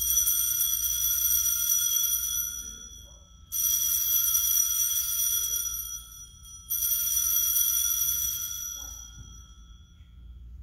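Altar bells (Sanctus bells) rung three times at the elevation of the consecrated host, each ring a high, shimmering jingle that rings out for about three seconds before the next.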